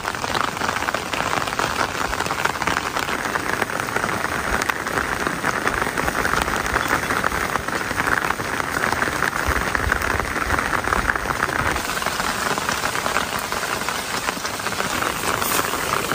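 Steady rain pattering: a dense, even hiss of fine drops.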